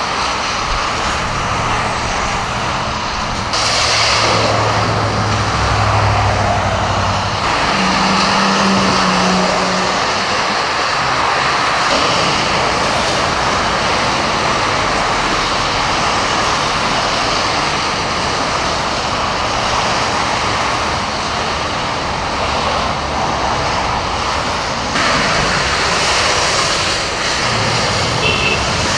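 Cars and trucks driving through deep standing water on a flooded road, tyres splashing and throwing up spray in a continuous rush, with engines running as they pass. Louder splashing passes come about four seconds in and again near the end.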